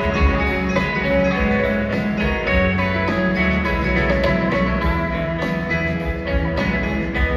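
A live band playing amplified music, led by guitars, with a steady beat.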